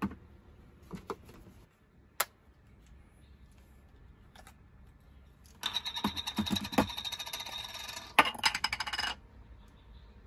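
Small metal camera lens and lens cap being handled on a tabletop: a few separate clicks and a short ringing ping, then, a little past halfway, a few seconds of dense, rapid metallic clicking and rattling with a ringing tone, briefly broken once before it stops.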